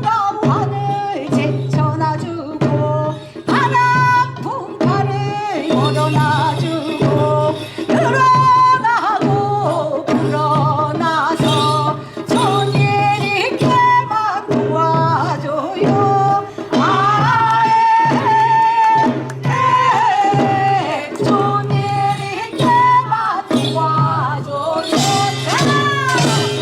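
Korean folk singing in the sorigut style over samul nori percussion: a voice sings long sliding phrases above a steady drum beat. The metal percussion grows brighter near the end.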